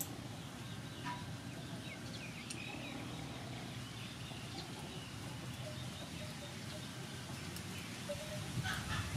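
Quiet rural outdoor ambience with birds calling now and then, and a few light clicks.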